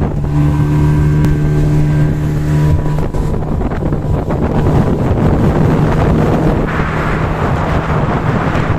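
Outboard motor of a small tiller-steered speedboat running at speed, a steady droning hum. After about three seconds it is largely buried under rushing wind on the microphone and the hiss of spray from the wake.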